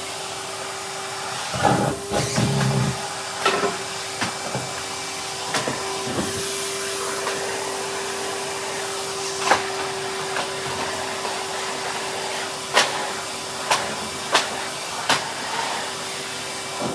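Henry cylinder vacuum cleaner running with a steady motor hum, with sharp clicks and rattles every so often, loudest about two seconds in, as debris is sucked up the hose.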